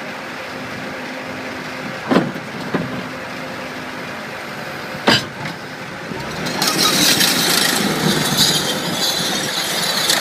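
Cat 277B compact track loader running: a steady engine drone, broken by three sharp metal clanks about two, three and five seconds in. About six and a half seconds in it grows louder and harsher as the machine is worked.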